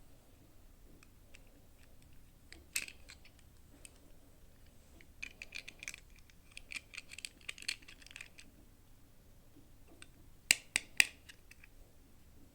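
Toy doll packaging being handled and opened: small clicks and crinkles, a busy run of them in the middle, then three sharp clicks near the end.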